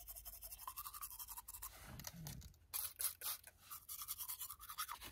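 Faint toothbrush scrubbing teeth in quick, rhythmic back-and-forth strokes, with a pause of about a second near the middle.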